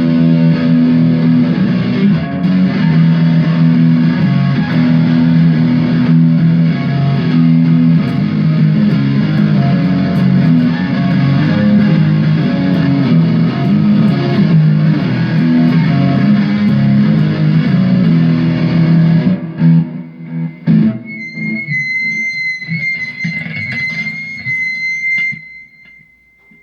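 Electric guitar played through distortion in a loose rock-blues jam. The playing stops about twenty seconds in, a couple of knocks follow, and then a thin, steady high whine rings for several seconds before fading out.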